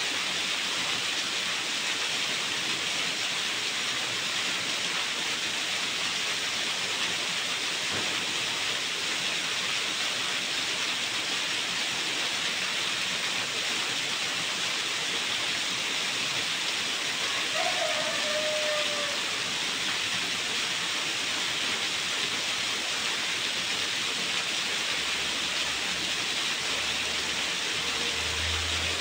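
Small garden waterfall: water falling and splashing in a steady, even rush. A brief falling tone sounds about two-thirds of the way through.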